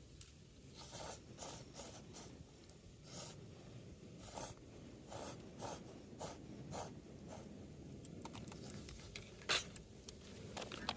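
A series of short scraping and rubbing strokes, irregular, about one to two a second, louder near the end.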